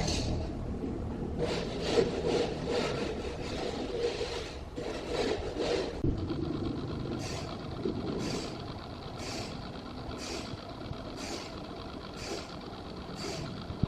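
Wood being sawn: steady mechanical noise, with a rasping saw stroke about once a second through the second half.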